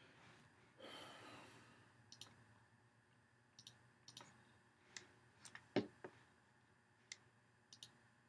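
Faint breath out, like a sigh, about a second in, followed by a dozen or so light, sharp computer clicks at uneven intervals, the loudest near six seconds in.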